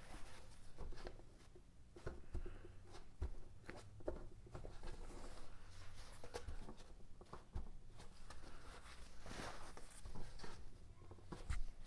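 Soft rustling and scattered light taps of a folded paper towel being pressed and dabbed onto a wooden wing with gloved hands, blotting up excess glue from the joint, over a faint low hum.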